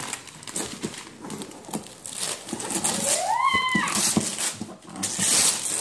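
Wrapping paper being torn and crinkled, with a loud stretch of ripping near the end. About three seconds in, a child gives one short squeal that rises and falls in pitch.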